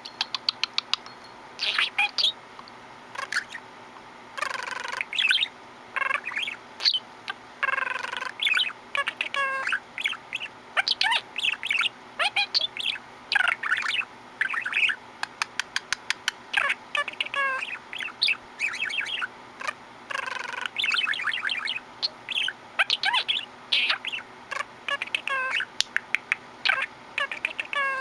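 Budgerigar chattering and warbling: a run of short chirps, rapid clicks and squawky notes in quick bursts, pausing briefly between phrases.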